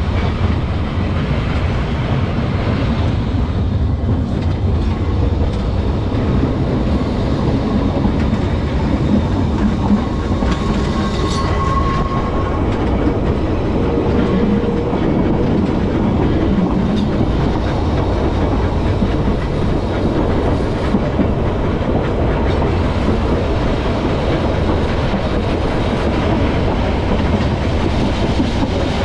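Vintage Manx Electric Railway tramcar running along the track, heard from on board: a steady, loud rumble of the wheels on the rails.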